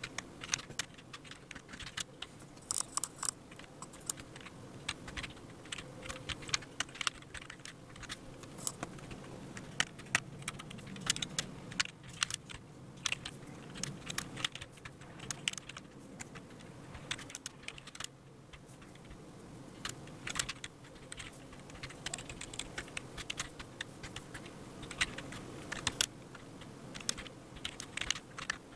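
Typing on a computer keyboard: an uneven run of quick key clicks with short pauses, over a low steady background hum.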